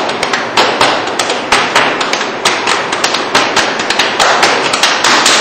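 Hands banging hard and fast on an upright piano, about five sharp bangs a second.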